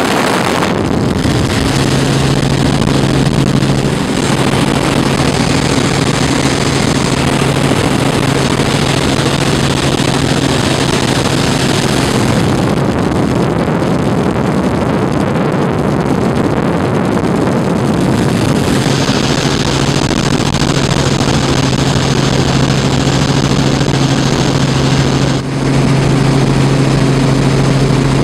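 Robinson R44 Raven II helicopter heard from inside the cabin: its engine and rotors make a loud, steady drone with a low hum, dipping briefly near the end.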